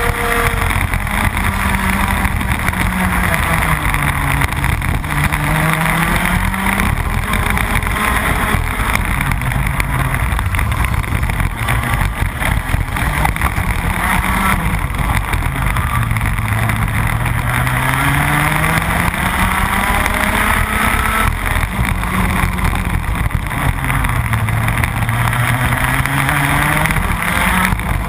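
Rotax Max 125cc single-cylinder two-stroke kart engine at racing speed, heard from on board: its note climbs steadily as the kart accelerates and drops away when it lifts off and brakes, over and over through the lap.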